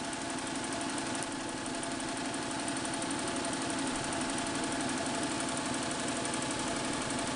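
Melco EMC 10/4T multi-head commercial embroidery machine running, its needle stitching at a fast, steady, even rate.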